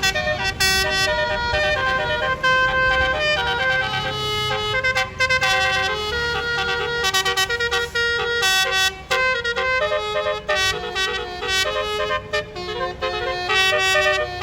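Basuri melody horn on a tour bus, sounding through roof-mounted trumpets and playing a tune in quick stepped notes, over a low engine rumble.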